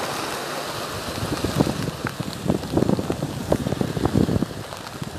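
Rain falling in a steady hiss, with wind buffeting the microphone in irregular low thumps.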